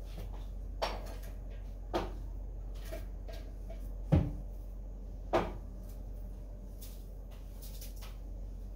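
Household knocks and thuds, like cupboard doors or objects being handled indoors. There are four distinct knocks, the loudest and deepest about four seconds in, with a few fainter clicks between them over a steady low hum.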